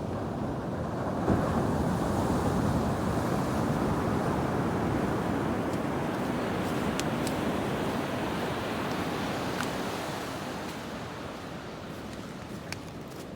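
Ocean surf: a wave breaking and washing up the beach, swelling about a second in and slowly fading over the last few seconds.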